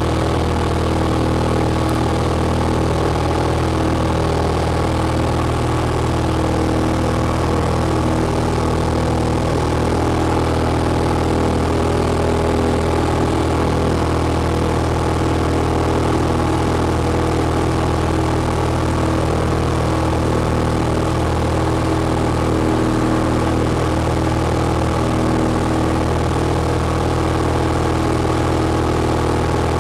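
Single-engine light aircraft's engine and propeller running at a steady, unchanging drone, heard from inside the cockpit.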